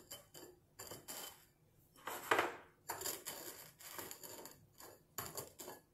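Rim of an upturned drinking glass grinding and tapping on a ceramic plate as it is twisted in salt to coat it. It comes as a series of short gritty scrapes and taps, the longest and loudest about two seconds in.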